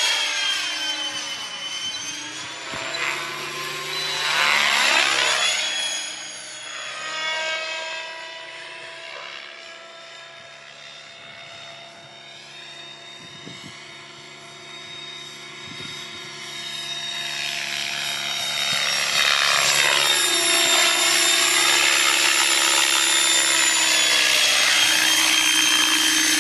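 Radio-controlled helicopter in flight: a whine of rotor and motor that sweeps in pitch as it passes close in the first few seconds, fades as it flies off, then grows louder and holds steady as it comes back in low to land.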